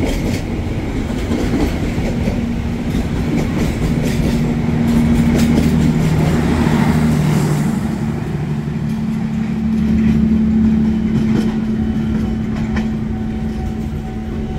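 KRL Commuter Line electric train passing close alongside the platform, its wheels clacking over the rail joints under a steady hum. The last car goes by and the train runs on away down the line.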